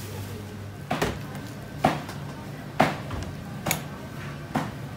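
Five sharp knocks about a second apart, a hard utensil striking in the kitchen, over a steady low hum.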